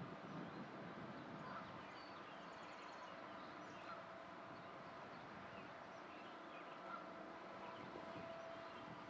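Faint outdoor ambience: a steady low hum with a few faint bird chirps.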